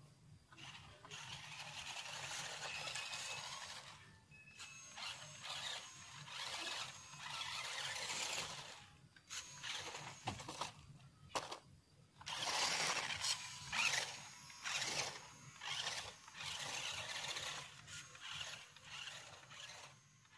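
Toy RC monster truck's small electric motor and gearbox whirring in repeated bursts of one to three seconds, stopping and starting.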